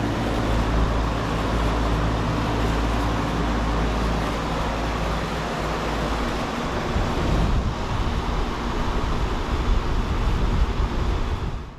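1995 Payne Teardrop 5-ton central air conditioner condenser running: a steady hum from its Copeland scroll compressor under the rush of the condenser fan, the unit cooling properly. About halfway through the steady hum gives way to rougher, fluctuating noise, and the sound cuts off just before the end.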